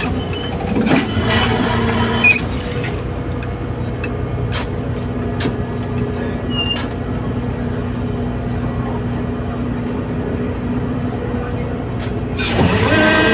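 Fishing vessel's diesel machinery droning steadily, with scattered sharp clicks and knocks, swelling louder briefly near the end.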